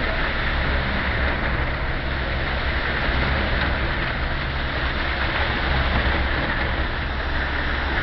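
Steady drone of construction machinery running, a constant low engine hum with an even hiss over it and no change in pace.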